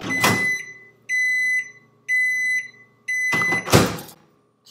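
Microwave oven beeping at the end of its heating cycle: four high electronic beeps about a second apart. A clunk comes with the first beep, and a loud clunk about three and a half seconds in is the door being opened.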